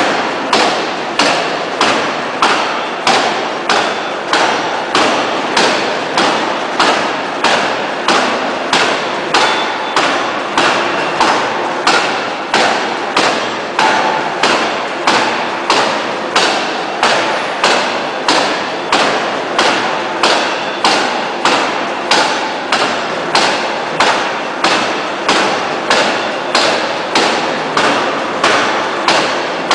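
Fully hydraulic open-die forging hammer striking a red-hot steel bar in rapid, evenly spaced blows, nearly two a second. Each blow is a sharp impact that dies away before the next.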